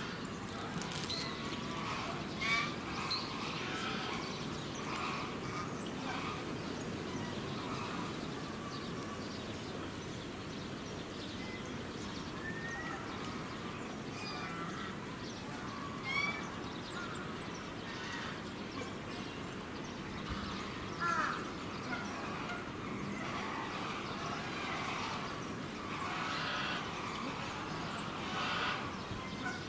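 A mixed flock of geese (swan geese, greylag geese, bean geese and cackling geese) giving short honks and calls on and off, several at a time, with a few louder calls standing out.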